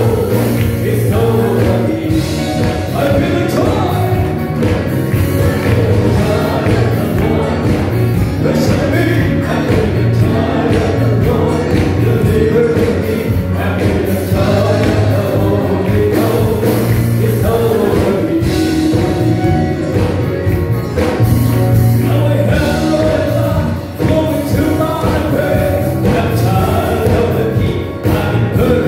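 Church choir singing an upbeat gospel song over an instrumental accompaniment with a steady bass line.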